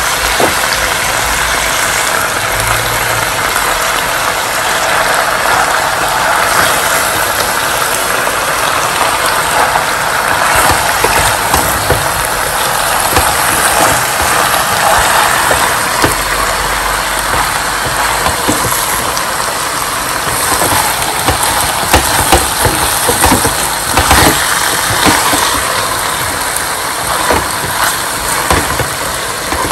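Chicken and spinach sizzling steadily in hot oil in a frying pan, with a wooden spatula clicking and knocking against the pan now and then, more often in the second half.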